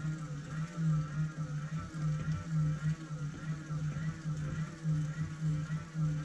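Geared DC motor hand-cranked as a generator, running with a steady low hum and a gear whine that rises and falls with each turn of the crank, under load while charging a phone.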